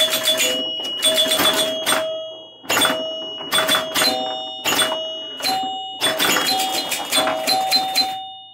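Freshly rebuilt pop bumpers on a 1976 Gottlieb Ship Ahoy electromechanical pinball machine fired by a light touch of the hand. Bursts of quick mechanical clacks come one after another, each with the scoring chimes ringing out at several pitches. The bumpers are firing at once on the slightest touch, the sign of rebuilt, well-adjusted bumper mechanisms.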